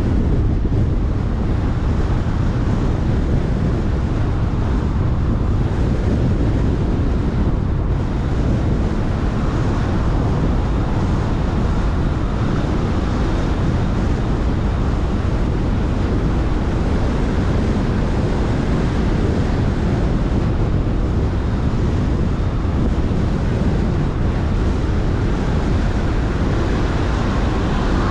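Steady road noise of a car driving at speed: tyre rumble on asphalt with wind on the microphone.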